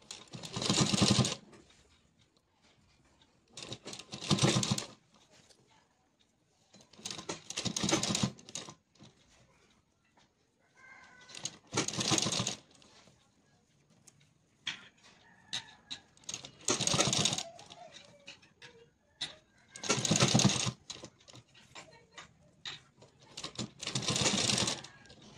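Sewing machine stitching in seven short runs of about a second each, roughly every four seconds, with pauses between as the fabric is repositioned. The machine is sewing folded piping down along a blouse neckline.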